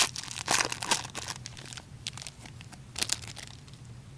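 Crinkling and rustling of hockey card pack wrappers and cards being handled, in irregular flurries, the busiest in the first second and a half and another about three seconds in.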